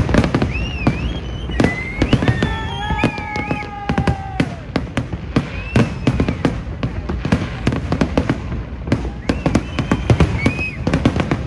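Fireworks display: a dense, continuous barrage of bangs and crackles from aerial shells, with several high whistling tones rising and falling over it, and one longer held tone in the middle.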